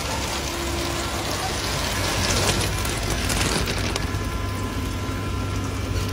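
Artificial rain from a film-set rain rig pouring onto an SUV's roof and windows, a steady hiss. About four seconds in it turns duller, heard from inside the car's cabin, over a steady low hum.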